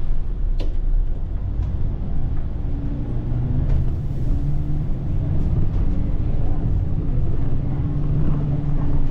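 Volvo B8RLE bus's rear-mounted six-cylinder diesel and ZF EcoLife automatic gearbox running under way, heard from the driver's cab as a steady low drone with a hum that shifts in pitch.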